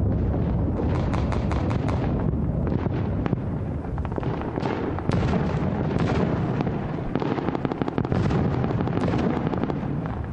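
Battle sound effects: a continuous rumble of explosions with sharp gunfire cracks, some in quick runs, possibly mixed with music.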